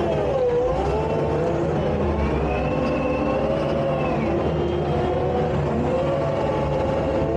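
Takeuchi tracked skid steer's diesel engine running steadily under load, with a whine that rises and falls in pitch as the machine works.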